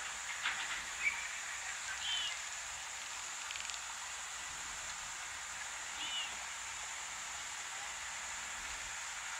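Outdoor bush ambience from a wildlife camera's microphone: a steady hiss, with two short high chirps about two and six seconds in and a few faint clicks near the start.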